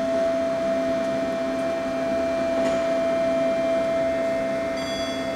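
Glass passenger lift travelling, its drive giving a steady hum with a constant whining tone. Near the end a faint high electronic tone starts.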